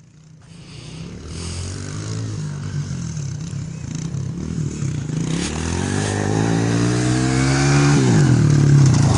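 Small dirt bike engine revving as it approaches, growing steadily louder. Its pitch climbs, drops sharply about eight seconds in, then rises again.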